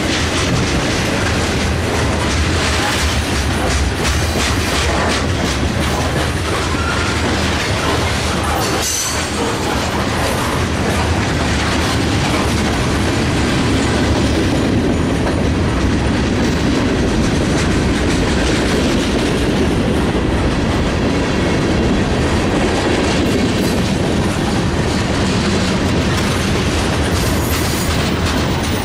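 Freight train cars (autoracks and covered hoppers) rolling steadily past on steel wheels, a continuous rumble with the wheels clicking over the rail joints.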